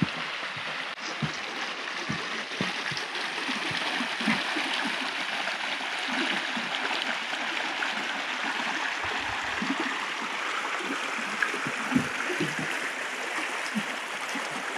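Shallow creek rippling and rushing steadily over a rocky bed, with irregular soft low thumps of footsteps on the trail underneath.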